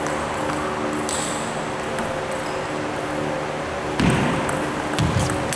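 Table tennis ball clicking: a few light ticks early on as the ball is readied, then from about four seconds in a serve and quick rally, the celluloid ball cracking sharply off bats and table several times. A steady hum runs underneath.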